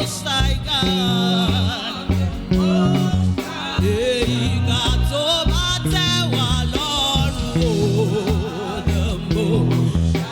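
Gospel worship music: a band with a pulsing bass line plays under a sung vocal line that wavers and bends in pitch.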